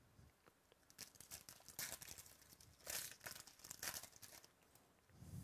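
Foil wrapper of a 2017 Topps Chrome baseball card pack crinkling and tearing as it is ripped open by hand, in about four short bursts starting about a second in.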